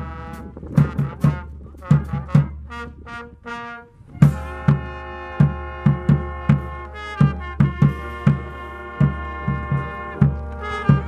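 Brass band playing over a steady drum beat: short separate notes at first, then held chords from about four seconds in.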